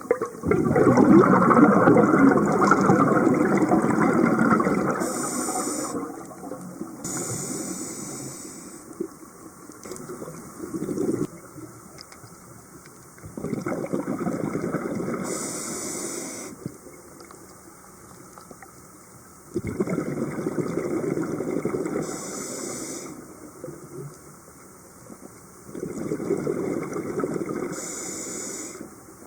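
Scuba diver breathing through a regulator underwater: four bursts of exhaled bubbles, each lasting a few seconds, with a short high hiss of air through the regulator near the end of each, and quieter gaps between.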